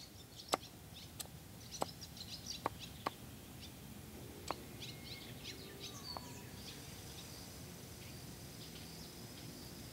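Hatchet chopping into a cedar branch on a wooden chopping block: about six sharp, separate chops in the first four and a half seconds as a bark-peeling spud is shaped, chips flying off. Birds chirp faintly throughout, and a steady thin high insect trill sets in after about six seconds.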